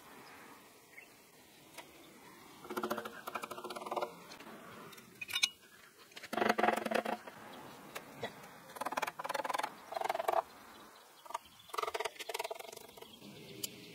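Chicken-wire mesh rattling and scraping against the clay oven shell as it is pulled and pressed into place by hand, in about six short, scratchy bursts.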